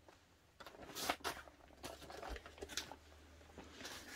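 Faint rustling and a few light clicks and knocks from handling a handbag and its packaging, starting about half a second in.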